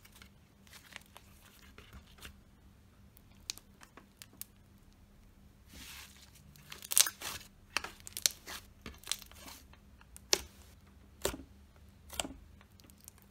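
Sand-based slime being stretched, pulled apart and squeezed by hand: scattered sticky crackles and clicks, a tearing sound about six seconds in, and several sharper snaps and pops in the second half.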